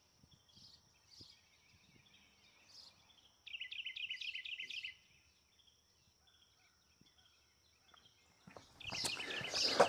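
A small garden bird sings a quick phrase of rapidly repeated high notes, about a second and a half long, around three and a half seconds in. Near the end come footsteps and clothing rustle as someone walks up close.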